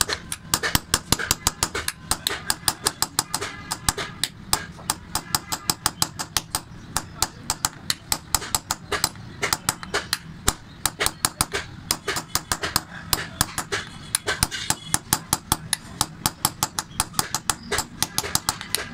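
A small hammer tapping a metal punch against a copper tray in rapid, even strikes, about four or five a second: hand chasing of a decorative pattern into the copper.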